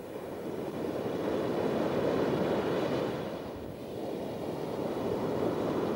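Ocean surf breaking on a sandy beach: a wash of noise that swells to a peak about two seconds in, eases, then swells again near the end.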